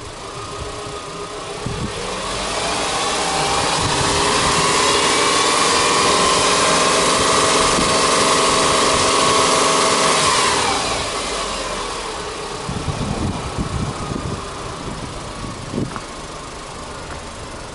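Subaru Impreza 2.0i-S's EJ20 2.0-litre flat-four engine, heard from in front of the open engine bay, free-revved: the revs climb from about two seconds in, are held high for about six seconds, then drop back to idle about ten seconds in.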